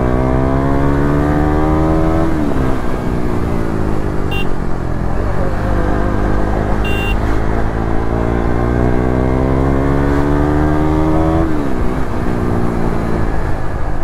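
KTM Duke's single-cylinder engine under way. Its pitch rises under throttle, drops about two and a half seconds in and sags, then climbs steadily for several seconds before falling away sharply near the end.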